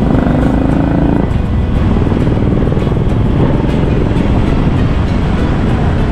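Motorcycle riding through city traffic: its engine runs steadily under a heavy rumble of wind on the microphone. A short steady tone sounds for about the first second.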